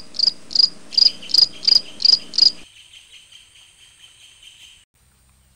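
Cricket-chirp sound effect: a regular run of about nine high chirps, about three a second, that cuts off suddenly a little under three seconds in. A fainter high ringing tone carries on until about five seconds.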